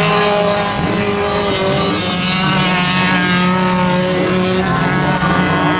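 Autocross race cars' engines running hard on a dirt track, a steady engine note with several pitch lines that shift only slightly.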